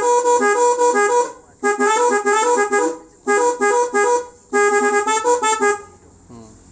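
Telolet musical horn playing one of its selectable tunes: a tooting melody of several horn notes in four short phrases with brief gaps, stopping near the end.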